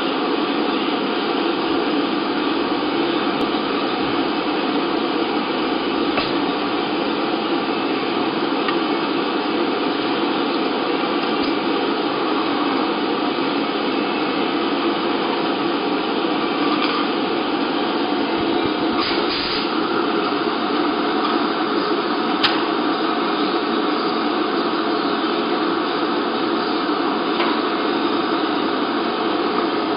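Steady whirring hiss of a running machine, like a cooling fan, with a few light clicks and knocks here and there.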